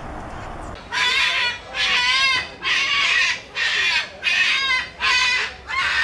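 A cockatoo screeching: about seven loud, harsh calls in a row, each about half a second long, starting about a second in.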